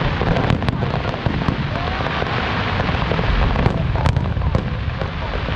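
Fireworks going off: a dense, continuous crackle with several sharp bangs, the loudest about four seconds in.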